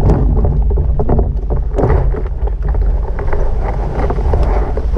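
Wind rumbling over the microphone of a camera mounted on a tandem hang glider as it touches down and runs out on sand, with scattered knocks and rattles; the rush eases a little after about two seconds.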